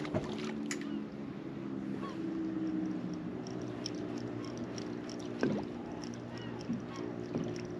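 Steady low hum of the boat's engine ticking over, with scattered light clicks and ticks from the fishing tackle as a lure is worked back.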